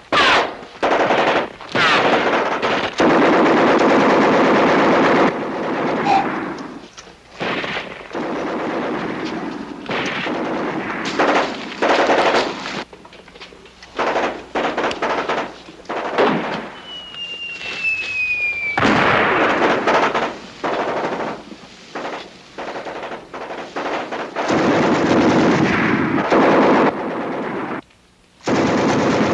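Battle-scene gunfire: long bursts of rapid machine-gun fire mixed with rifle shots, broken by short lulls. A falling whistle a little past the middle is cut off by a loud burst of fire, and there is a brief silent gap near the end.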